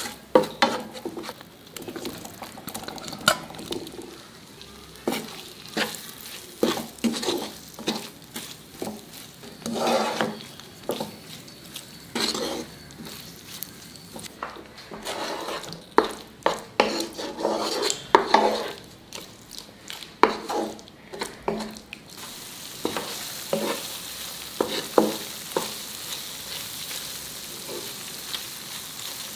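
Wooden spatula scraping and stirring through a thick gravy in a nonstick frying pan, irregular scrapes and knocks against the pan, over the steady sizzle of the gravy frying. Paneer cubes are being turned in the sauce, and in the last third the sizzle is steadier with fewer strokes.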